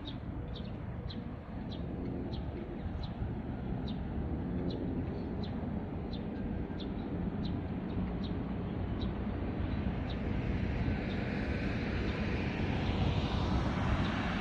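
A steady low rumble of wind on the microphone, with a small bird chirping over it at about one and a half chirps a second until about ten seconds in. Near the end a hiss swells and grows louder.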